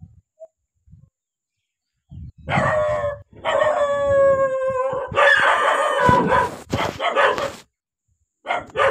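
An animal's cries starting about two seconds in: one long held, slightly falling cry, then louder, rougher calls that stop shortly before the end.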